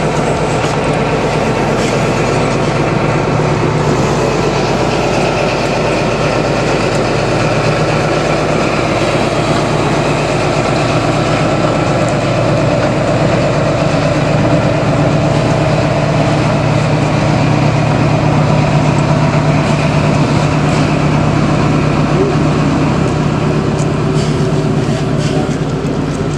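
High Speed Train diesel power car running as the train moves slowly past: a loud, steady engine drone.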